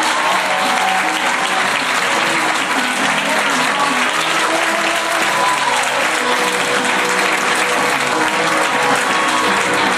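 An audience clapping steadily, with music playing along underneath.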